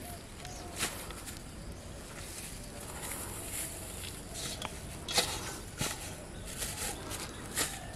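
Rustling and scattered light knocks and clicks as a plastic bag, a woven bag and a metal bowl are handled on grass, the sharpest click about five seconds in and another near the end.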